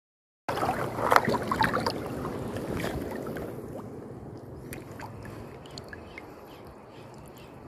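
Shallow sea water sloshing and splashing, loudest in the first couple of seconds and then fading to a soft wash, with a few faint clicks near the end.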